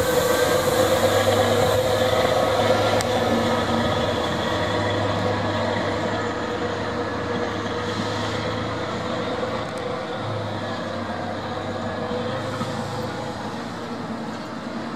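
DB class 362 diesel shunting locomotive running under load as it hauls a double-deck coach, a steady engine hum that slowly fades as the train moves away.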